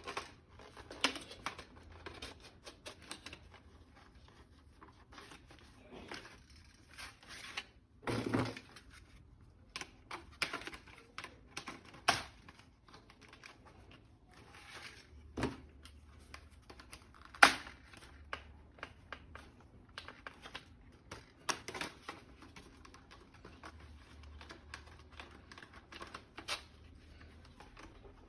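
Plastic toy gun parts and packaging being handled: irregular small clicks and taps with some crinkling, one sharper click about two thirds of the way through.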